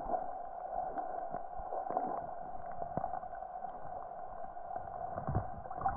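Muffled underwater creek ambience picked up by an action camera held under the water: a steady dull rush of current with scattered small clicks and ticks.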